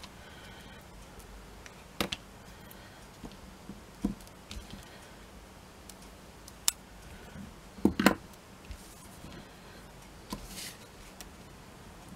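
Small craft scissors trimming thick cardstock: a few separate, sharp snips and clicks spread over several seconds, the loudest pair about eight seconds in, with light handling of the card between them.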